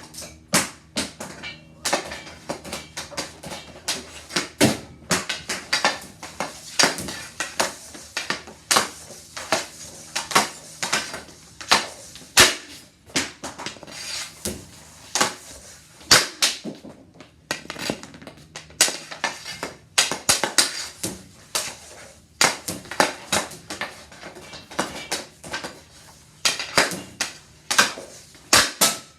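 Hockey stick and puck clacking on synthetic ice tiles during passing and shooting drills, the puck rebounding off the passer's elastic bands: a long, irregular run of sharp clacks, often several a second.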